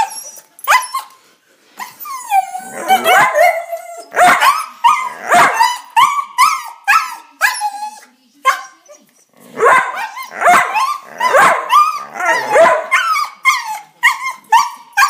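Dog giving a long run of high-pitched, whiny yips and barks, about two a second, some sliding down into whines, with two short breaks.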